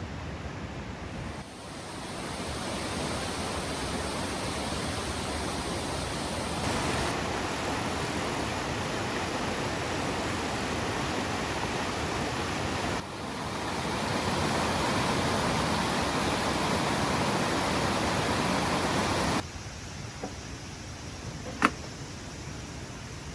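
Steady rain, an even hiss that shifts in level several times as the shots change, with one sharp click near the end.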